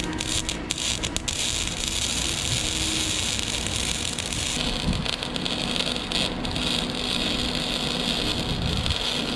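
Gasless flux-core wire-feed welder arc sizzling and crackling steadily as weld beads are run over tack welds on a steel tube frame to reinforce the joints.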